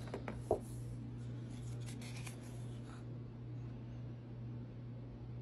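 Pages of a glossy paper program being handled and turned: a few light taps in the first half-second and a brief paper rustle about two seconds in, over a steady low hum.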